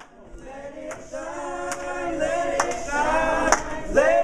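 A group of people singing together in held notes, with hand claps about once a second on the beat; the singing fades in over the first second or so.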